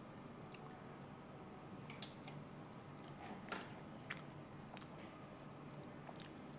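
Quiet eating sounds: chopsticks, tongs and a ladle clicking against bowls and a metal hot pot, with scattered chewing. The loudest click comes about three and a half seconds in, over a faint steady hum.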